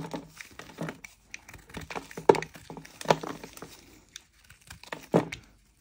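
Snap-off utility knife blade scraping the crust off a lump of mokka clay, in a run of uneven scratchy, crumbly strokes, the strongest about two seconds in.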